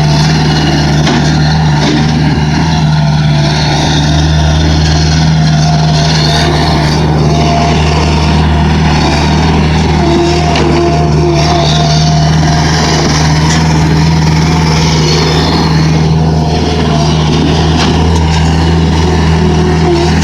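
Gehl 4625 SX skid steer's diesel engine running at a steady speed, with no revving.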